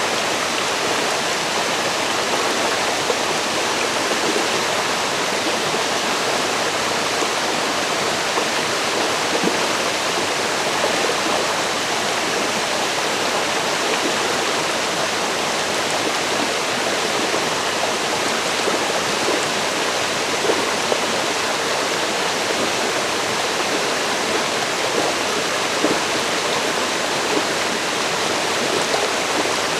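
A forest river flowing steadily over rocks, an even rushing and burbling of water with small splashes here and there.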